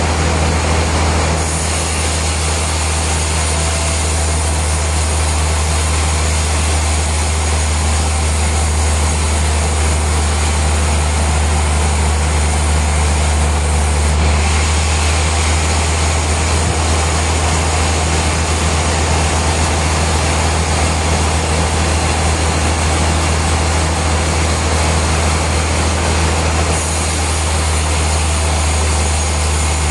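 Heavy sawmill machinery running with a steady low drone under a hiss, its character shifting slightly a few times.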